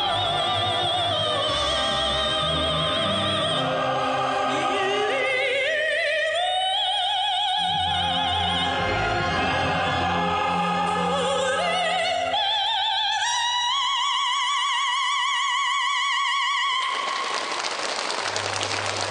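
Music: a song whose lead melody holds long, wavering notes that climb step by step over bass and accompaniment. A cymbal-like wash swells about 17 seconds in.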